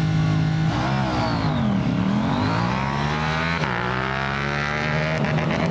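Drag-racing motorcycles held at high revs on the start line, then launching: engine pitch drops as the clutch engages and climbs as they accelerate away, with a gear change about three and a half seconds in.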